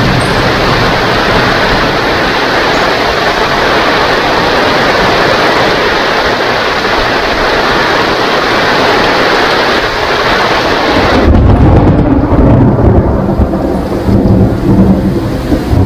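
Heavy rain falling steadily in a loud, even hiss. About eleven seconds in, the hiss suddenly drops away and a deep, uneven rumble of thunder takes over.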